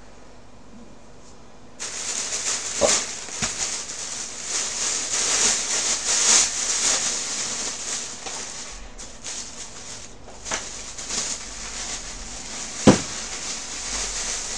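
Thin plastic carrier bag rustling and crinkling as takeout food containers are pulled out of it, starting about two seconds in, with one sharp knock near the end.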